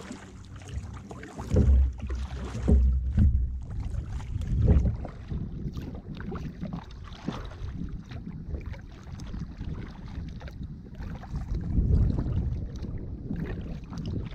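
Wind buffeting the microphone in gusts, strongest a couple of seconds in and again near the end, over the small splashes and drips of kayak paddle strokes in calm water.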